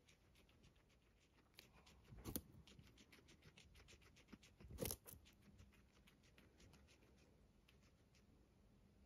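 Near silence with faint, rapid clicking and rustling, and two louder soft knocks about two and five seconds in.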